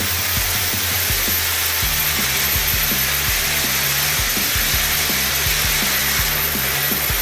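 Several cone fountain fireworks burning together, giving a steady spraying hiss, over background music with a bass line that changes notes about two seconds in.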